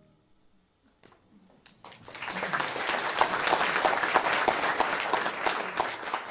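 Audience applause. After a moment of near quiet, the first claps come about a second and a half in and quickly build to full, steady clapping.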